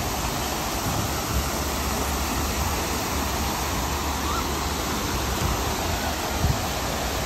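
Steady rushing of water running through a mini-golf course's artificial stream channel, with a low rumble underneath. A single soft knock comes about six and a half seconds in.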